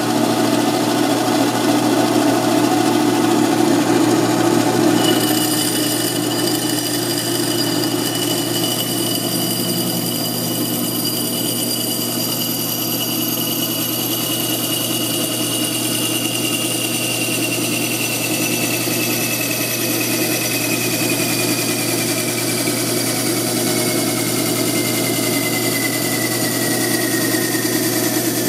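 Gryphon C-40 diamond band saw running with a steady motor hum. From about five seconds in, its diamond blade cuts into a glass wine bottle, adding a high whine that slowly falls in pitch.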